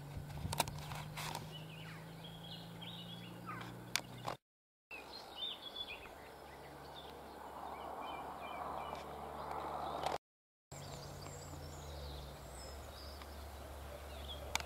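Rural outdoor ambience: small birds chirping over a low steady hum, with a few sharp clicks in the first seconds. A soft rushing noise swells and fades about two-thirds of the way through, and the sound drops to silence briefly twice.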